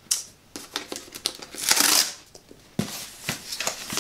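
Cardboard mailer box being handled and opened: a tearing rasp about halfway through, with short knocks and scrapes of the cardboard before and after it.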